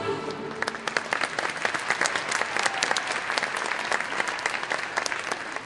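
Audience applauding, many hands clapping together, starting about half a second in as the orchestral music fades out. The clapping is fullest around the middle and thins toward the end.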